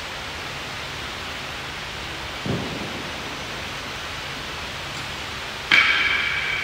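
Steady hiss of room noise, with a dull thud about two and a half seconds in and a sharp metallic clink that rings on briefly near the end, as a loaded barbell with bumper plates is handled on the gym floor.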